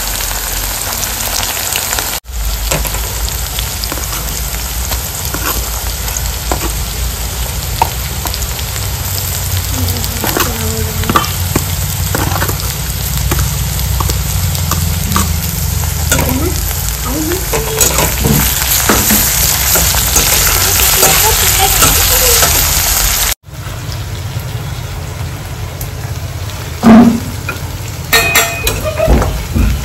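Food frying in hot oil in a pan over a gas burner, sizzling steadily, with scattered clicks and scrapes of a utensil stirring it.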